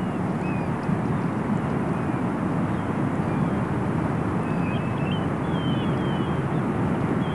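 Steady low rushing outdoor ambience, with short high chirps of birds calling here and there, several close together in the second half.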